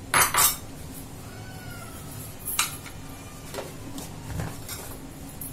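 Plastic mixer-grinder jar being handled and its lid fitted: two sharp plastic clicks near the start and a few lighter knocks later. A faint, thin tone rises and then slowly falls in the middle.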